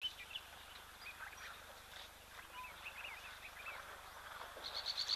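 Birds calling at a waterhole: many short, high chirps and whistles from several directions. Near the end, a fast run of evenly repeated high notes begins.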